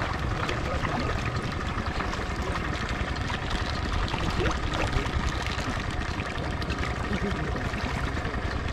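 Water splashing and trickling at a river's surface, with many small splashes from fish rising to take floating feed pellets.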